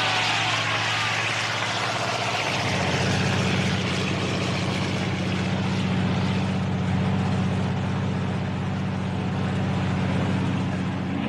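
Propeller aeroplane engine running steadily; its note changes about two and a half seconds in and then holds level.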